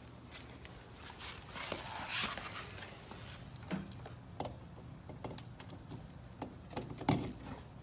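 Handling noise of a power tool and its cord being unwrapped and plugged in: scattered light clicks, knocks and rustling, with the loudest knock about seven seconds in.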